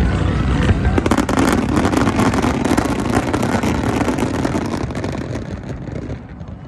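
A barrage of aerial fireworks: rapid crackling over a low rumble of bursts, dying away near the end.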